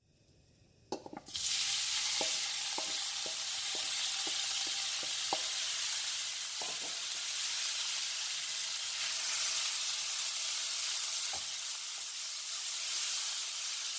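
Chopped marinated beef flank dropping into a preheated nonstick pan and sizzling steadily over high heat. The sizzle starts about a second in. It comes with a run of light knocks from the wooden spoon, about two a second for a few seconds, and a couple more later.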